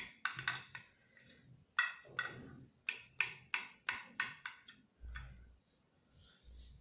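Knife cutting through a baked brownie, the blade tapping against the bottom of a glass baking dish in a run of quick, ringing clicks. A couple of dull low bumps follow near the end.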